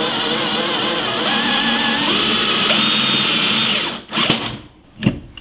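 Cordless drill-driver running a hole saw through 4 mm 6061 aluminium plate, the motor pitch wavering under load. It cuts off abruptly about four seconds in, followed by two short bursts, as the drill's torque clutch trips.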